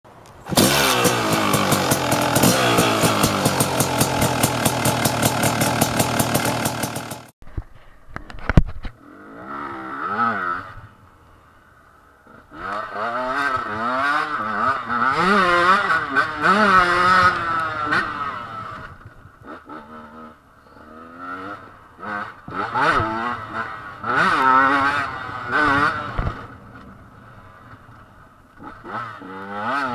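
Two-stroke Husqvarna 125 TE dirt-bike engine revving hard and dropping off again and again as it accelerates, shifts and backs off, with short lulls between runs. It is preceded by about seven seconds of a loud, dense sound with an even beat that cuts off suddenly, and by a single sharp knock.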